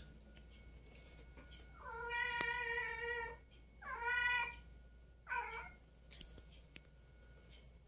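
Domestic cat meowing three times: a long drawn-out meow, a shorter one, then a brief clipped call.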